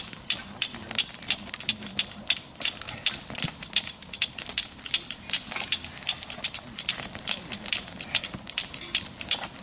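Campfire of dry grass and twigs crackling and popping, a dense run of sharp snaps several times a second as the tinder catches and burns fast.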